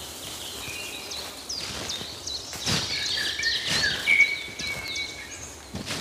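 Woodland songbirds singing and calling, many short chirps and hooked whistles overlapping, with one longer held whistle past the middle. A few soft low thumps sound underneath.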